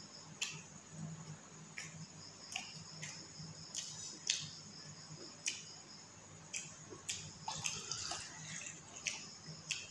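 Close-up eating sounds: irregular wet clicks and squelches as fingers mix rice with mutton curry on a plate, along with chewing, over a low steady hum.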